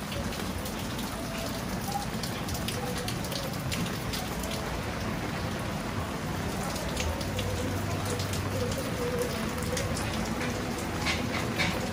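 Heavy rain falling steadily, with many sharp, close drops ticking on hard surfaces. A few stronger drop hits come near the end.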